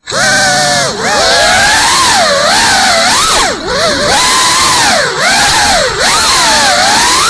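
GEPRC CineLog 35 FPV cinewhoop's brushless motors and ducted propellers whining loudly, the pitch swooping up and down again and again as the throttle changes in fast, aggressive flight.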